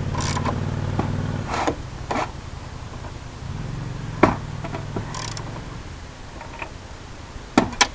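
Hand tools working on terminal hardware: a few sharp metallic clicks and light scrapes, with a low hum that stops about a second and a half in and returns in the middle. Two quick clicks come near the end.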